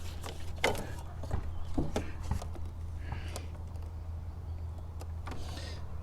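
Hands feeding a plastic evap tube back into place: scattered light clicks and knocks with brief rustles, over a steady low hum.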